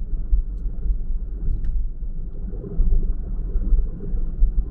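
Steady low rumble of a car being driven, heard from inside the cabin: road and engine drone with no speech over it.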